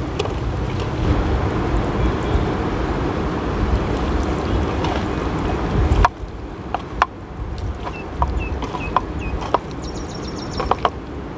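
Outdoor riverside ambience: a steady rushing noise of wind and river water with a low rumble, which drops suddenly about six seconds in, followed by scattered clicks and a few short bird chirps.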